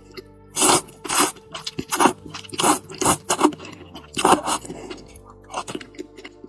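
Close-miked eating sounds: about nine short, sharp bites and chews of a skinless Orleans-flavoured chicken leg, over soft steady background music.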